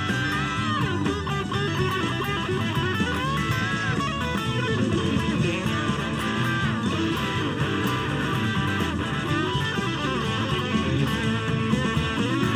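Lead electric guitar on a Fender Stratocaster, played with string bends and quick runs over a full rock band backing of drums and bass.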